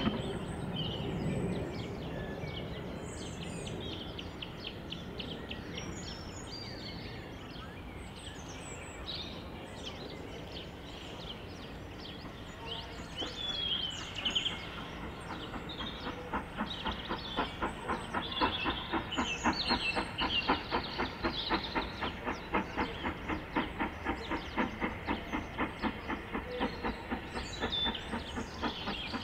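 Steam locomotive approaching at low speed. Its exhaust beats come in as regular chuffs, a few a second, from about halfway through and grow louder as it nears, with birds chirping over it.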